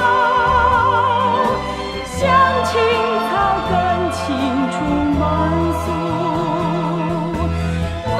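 Background music: a singer holding long, wavering vibrato notes over sustained low accompaniment, in an operatic style.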